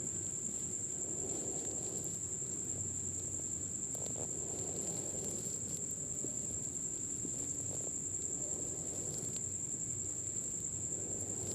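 Faint stirring of poha in a kadai with a metal spatula, a soft rustling with a few light clicks of the spatula against the pan, under a steady high-pitched whine.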